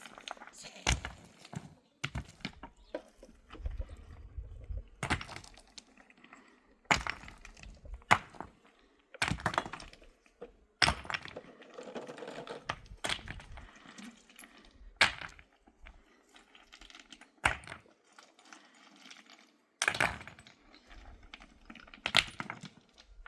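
A series of irregular sharp knocks and cracks, about one every second or two, with short quiet gaps between.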